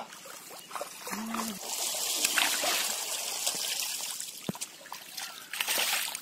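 Splashing and churning in shallow muddy pond water as fish are grabbed by hand and thrash. A long stretch of splashing is followed by a further burst near the end.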